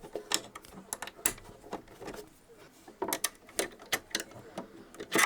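Irregular small clicks and taps of plastic and metal parts of a sewing machine's drop-in bobbin area being handled and fitted back into place.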